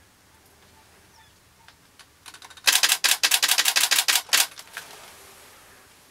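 A rapid burst of camera shutter clicks, about ten a second for under two seconds, starting a little before the middle: a camera firing in continuous shooting mode.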